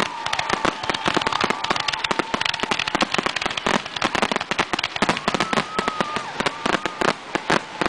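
Professional 1.3G aerial firework shells and cakes going off in a dense barrage: many sharp bangs a second with crackling, without a break.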